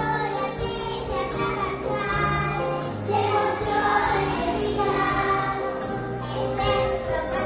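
A choir of young children singing a Christmas song over instrumental accompaniment with held low notes and a light, regular percussive beat.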